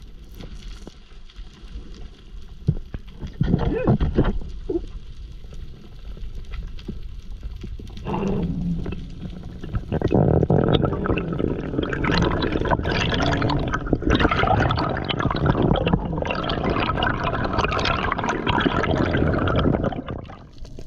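Water gurgling and bubbling around an underwater camera, with a few short surges early on and then a dense, crackling wash of bubbles from about eight seconds in that cuts off shortly before the end.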